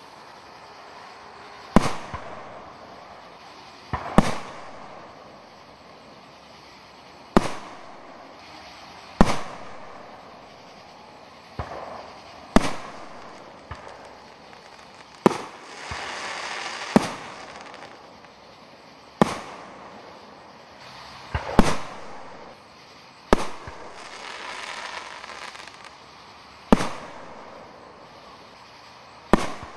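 Aerial fireworks shells bursting in a display: about a dozen sharp booms, two to three seconds apart, each trailing off briefly. Between them a softer hissing wash swells twice.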